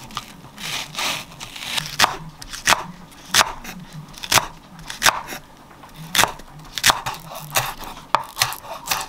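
Kitchen knife slicing a Korean leek (daepa) on a wooden cutting board. Each cut crunches through the stalk and ends in a sharp knock of the blade on the board, at about one and a half cuts a second.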